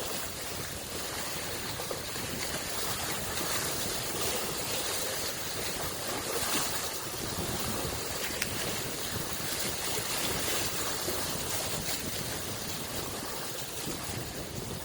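Small waves washing on the shore of Lake Biwa, a steady wash of water that swells and eases slightly.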